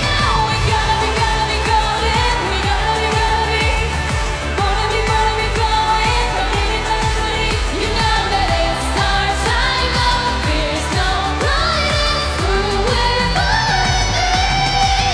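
Pop song with a female voice singing long, bending melodic lines over a steady dance beat.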